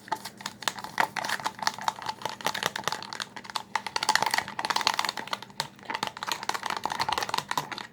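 The back of a paintbrush stirring 2-in-1 shampoo and salt in a cup, with rapid clicking and scraping against the cup's sides, mixing salt in as a slime activator.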